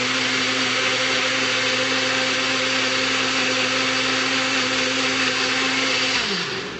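Electric blender with a small container running at a steady speed, blending an almond-milk smoothie with no ice. Near the end it is switched off and winds down with a falling pitch.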